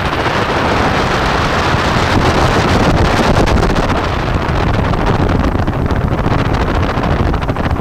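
Helicopter in low flight with its doors off: steady rotor and engine noise mixed with wind rushing over the microphone.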